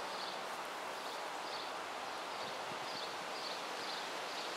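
Footsteps on grass, about two a second, over steady outdoor background noise.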